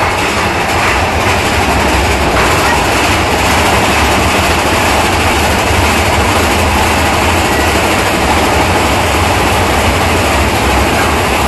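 Big Thunder Mountain Railroad mine-train roller coaster running along its track, heard from on board the car: a loud, steady rumble of wheels on rail.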